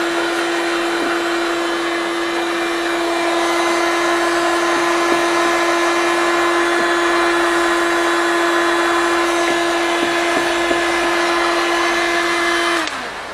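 Heat gun's fan motor running steadily with a constant hum and hiss, blowing on old varnish being scraped off a wooden step. It is switched off near the end, and the hum falls away as the motor winds down.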